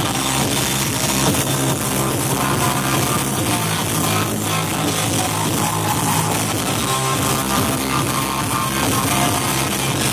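Rock music with guitar, playing steadily and loud.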